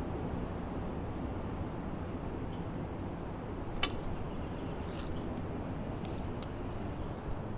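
Outdoor ambience: a steady low rumble with several short, high bird chirps scattered through it and one sharp click about four seconds in.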